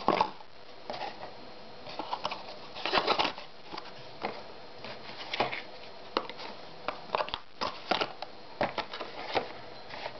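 Disc brake caliper parts (steel piston, rubber seals, cast caliper body) being handled on a paper-covered bench: irregular small clicks, taps and rustles as they are picked up and set down.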